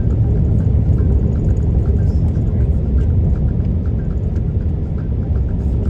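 Steady rumble of a 4WD tow vehicle driving along, engine and tyre noise heard from inside the cabin.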